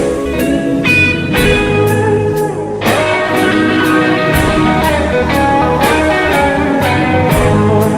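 Instrumental break of a blues-rock song: guitar over a steady drum beat, with no singing.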